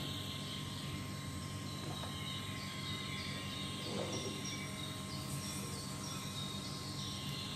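Steady background hum with short, high chirps repeating over it.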